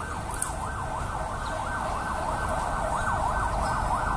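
A siren sounding a fast up-and-down yelp, about three sweeps a second, over background crowd noise.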